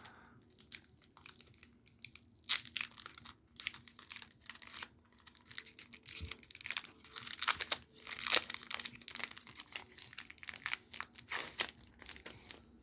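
Foil wrapper of a Magic: The Gathering booster pack crinkling and tearing as it is opened, an irregular run of sharp crackles.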